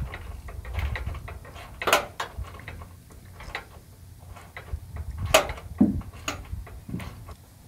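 Metal clinks and taps of a grille bracket and a hand tool being fitted and fastened at a pickup's front end, irregular, with two louder clanks about two and five and a half seconds in.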